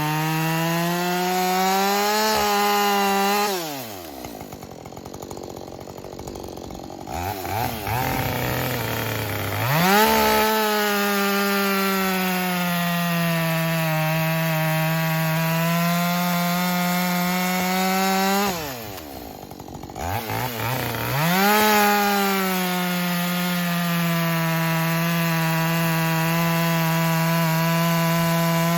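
Freshly rebuilt Husqvarna 562 XP two-stroke chainsaw with a 24-inch bar and full-chisel chain cutting wood at full throttle. It drops back to idle about 4 seconds in and again near 19 seconds, then revs up and goes back into the cut each time.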